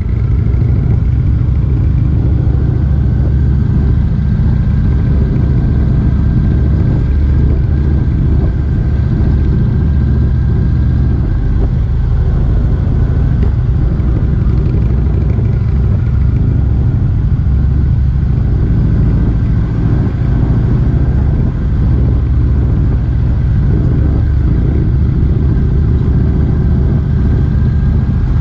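Motorcycle being ridden at a steady speed, its engine running with a continuous low rumble and no big changes in revs.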